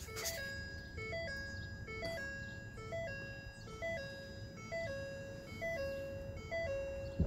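Electronic two-note warning chime from a 2012 Ford F-250's cab, repeating steadily a little faster than once a second: a short higher note, then a longer lower one.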